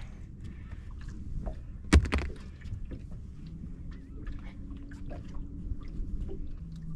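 Small fishing boat on the water: a low rumble with small clicks and rattles of gear, a single hard knock about two seconds in, and a faint steady hum that comes in about halfway through.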